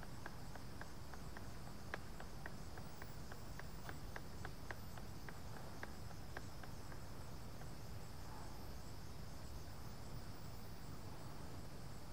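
Paint being stirred in a gallon paint can with a stir stick, the stick clicking lightly against the can about three times a second, stopping after about seven seconds. Steady chirring of insects runs underneath.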